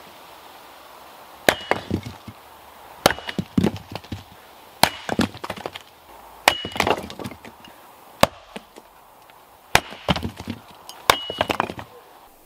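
A homemade six-bladed axe, welded from one large axe head and four small ones, striking and splitting firewood on a chopping block seven times, about one blow every one and a half seconds. Each sharp hit carries a brief ring of metal and is followed by the clatter of split pieces falling.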